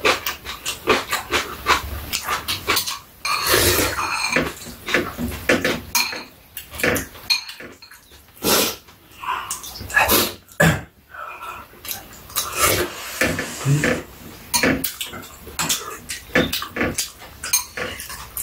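Close-up eating sounds: slurping and chewing of kalguksu noodle soup, with spoons clicking against bowls now and then.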